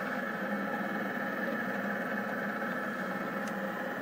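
Rostock delta 3D printer running mid-print: a steady mechanical hum and whine from its stepper motors driving the carriages.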